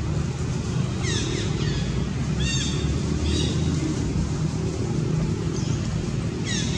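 Steady low outdoor rumble with short, high chirping calls that sweep downward, heard about four times.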